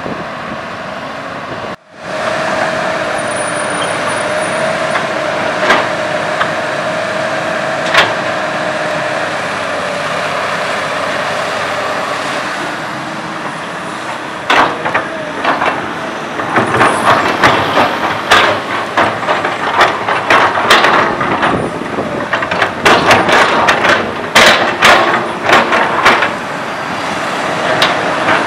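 Komatsu PC200 hydraulic excavator working: its diesel engine runs steadily under a high hydraulic whine. From about halfway on, its steel bucket digging and scraping through soil gives frequent sharp clanks and knocks.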